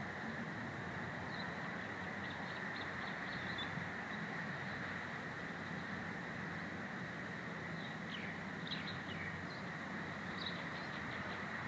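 Steady rushing background noise, with brief high chirps of small birds a few times, a couple of seconds in and again from about eight seconds.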